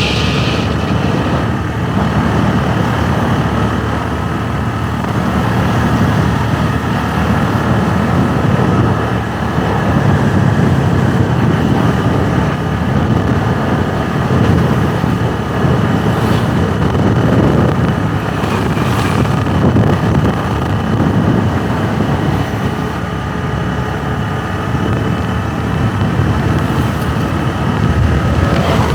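Motorbike running on the move, with heavy rumbling road and wind noise from riding.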